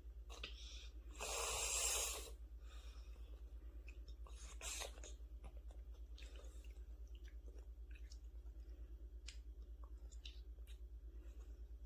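A young child chewing tomato, with small wet mouth clicks and smacks scattered throughout and a louder noisy burst about a second in. A steady low hum runs underneath.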